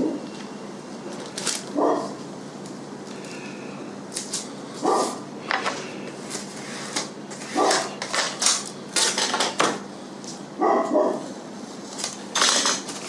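Adhesive tape being pulled off the roll and rubbed down onto a Depron foam sheet: a series of short rasping, crackling strokes with a few brief squeaks.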